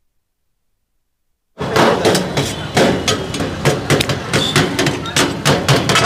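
A broad knife chops shawarma chicken on a steel tray in quick, irregular metallic strikes, about three or four a second. The strikes begin about a second and a half in, after dead silence.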